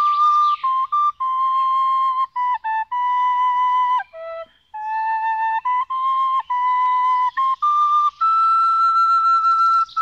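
Music: a wind instrument plays a slow melody of long held notes. The notes step up and down among a few neighbouring pitches, with a short break about four seconds in.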